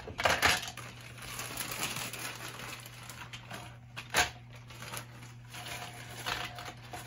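Ice cubes clattering out of a plastic zip-top bag into a blender cup, with the bag crinkling and scattered clicks of ice; a loud cluster of clatter just after the start and a single sharp knock about four seconds in. A low steady hum runs underneath.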